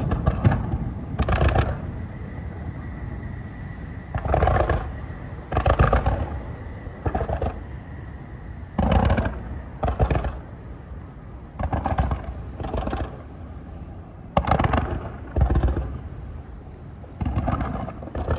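Starmine fireworks barrage: shells bursting with sharp booms, about a dozen, mostly in pairs a second or two apart.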